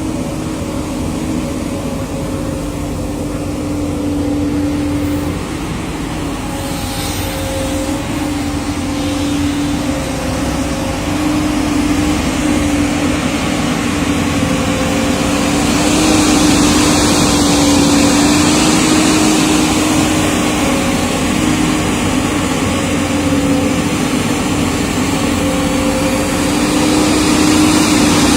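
JCB JS205 excavator's diesel engine running steadily, with a constant tone over the drone. It gets somewhat louder about halfway through.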